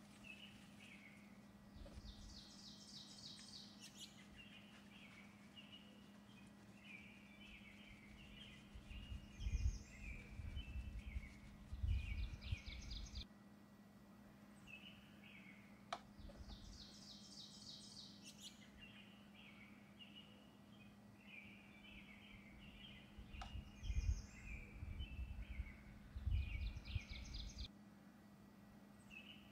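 Faint birds chirping and trilling in a repeating pattern, over a steady low hum. The same sequence of calls comes round again about every fourteen seconds, as in a looped background ambience track.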